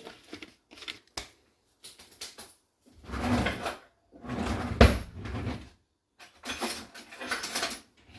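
Kitchen storage being opened and shut: three bursts of sliding and rustling, with a sharp knock about five seconds in.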